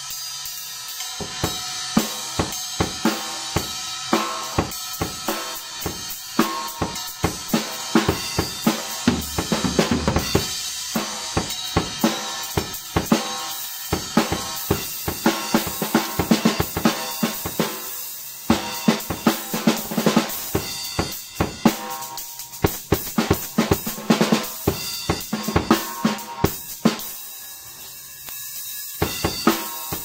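Acoustic drum kit played with sticks: a groove on snare and bass drum under low-volume perforated cymbals and hi-hat, which give a steady high hiss. Playing starts about a second in, and it eases off briefly near the end before picking up again.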